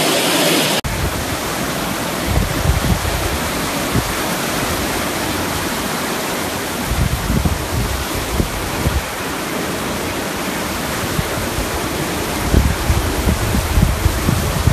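Hurricane wind blowing hard as a steady rushing hiss, with irregular gusts buffeting the microphone.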